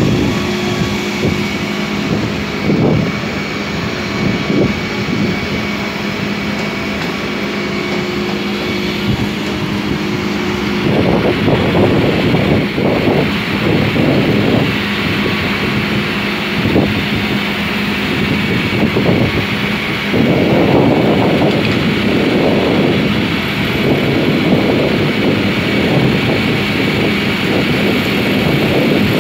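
A marble tile cutting saw running, a steady motor hum and whine with constant machine noise. It grows louder about eleven seconds in, with rough surges of noise.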